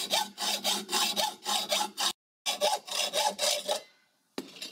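Hand hacksaw cutting through a square metal bar held in a vise, in quick, regular back-and-forth strokes with a brief break a little after the middle.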